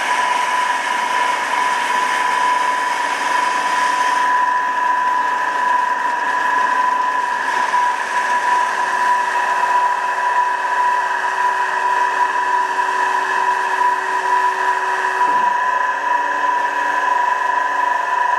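Amada HA250W hydraulic horizontal band saw running, with a steady high whine over a hiss, louder than usual because its cover is off. A lower steady hum joins about eight seconds in.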